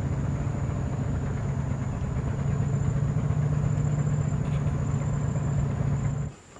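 A small engine running steadily with a low hum, cutting off suddenly near the end.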